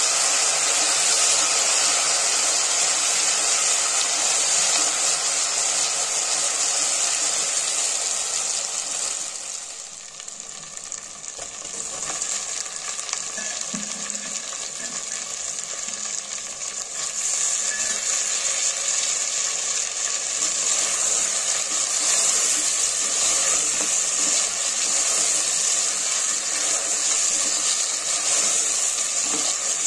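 Oil sizzling in a metal pot as fried onions, and then boiled mutton pieces, are stirred and sautéed with a spatula. The sizzle dies down about ten seconds in, then builds back up over the next several seconds.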